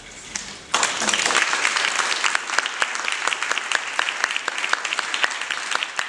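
Audience applauding: a dense clapping that breaks out suddenly about a second in and carries on at an even level.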